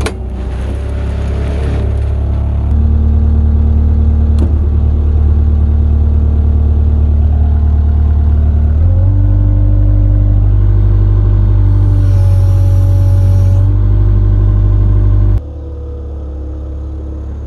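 Kubota V1505 four-cylinder diesel of an Avant 635 compact loader running under load, its speed stepping up about three seconds in and again about nine seconds in as the loader drives with a pallet of bricks on its forks. Heard loud from inside the cab, then much quieter from outside near the end.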